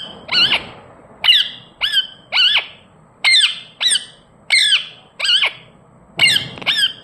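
Indian ringneck parrot giving a run of short, sharp, high-pitched squawks, about ten of them, one or two a second.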